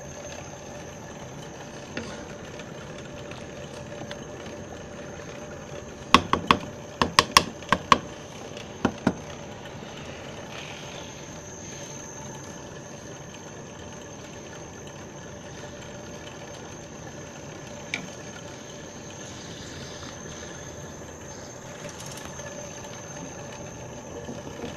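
Pot of rice and water at a rolling boil, with a steady bubbling hiss. About six seconds in, a quick run of sharp knocks lasts roughly three seconds.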